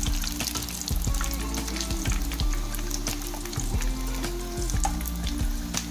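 Gram-flour-battered leaf bajji deep-frying in hot oil, a steady sizzle full of small crackles, while a metal spoon turns them over in the pan. Low steady background music runs underneath.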